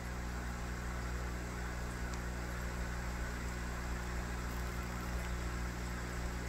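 Aquarium air pump running the tank's sponge filters: a steady low hum with an even hiss underneath.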